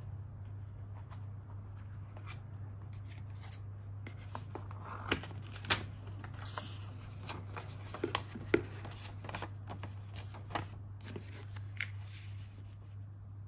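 Paper and cardboard packaging being handled: light rustling, scrapes and scattered sharp clicks and taps as a paper document folder is lifted out of a cardboard box insert and a printed card is taken out. A steady low hum runs underneath.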